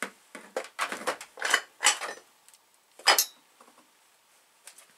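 Metal tools and parts clinking and scraping as they are handled on a workbench: a run of short knocks and rattles, the loudest about three seconds in.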